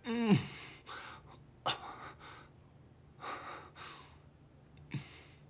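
A man's laboured, gasping breaths, several strained breaths about a second apart, opening with a short groan that falls in pitch.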